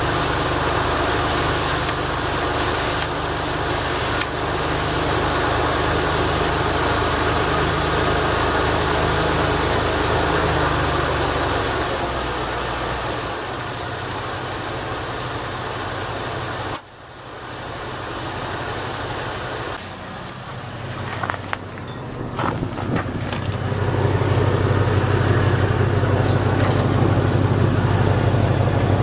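The 1989 Lincoln Town Car's 5.0-litre V8 idling. Partway through the engine sound fades and a sharp click is heard, a few more clicks follow, and in the last five seconds the engine is heard again, louder.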